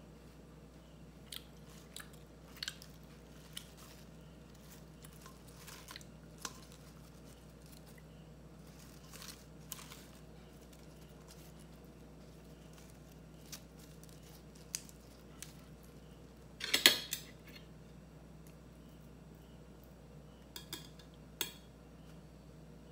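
Quiet mealtime handling: scattered light clicks of chopsticks against dishes and the rustle of crisp lettuce leaves being handled, with one louder crunch of lettuce about three-quarters of the way through.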